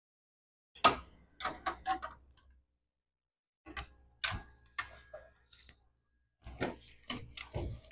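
Irregular light clicks and knocks in three short bursts, with near silence between them; one knock leaves a brief ringing tone.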